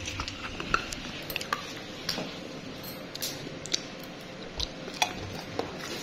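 Scattered light clicks and clinks of plastic fittings and containers being handled inside an open refrigerator, over a faint steady hum.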